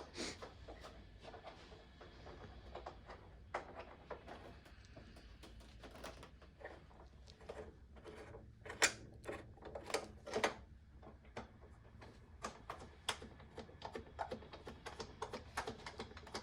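Irregular light clicks and taps of hand tools on metal while fitting parts to a motorcycle, with a couple of louder knocks about nine and ten and a half seconds in.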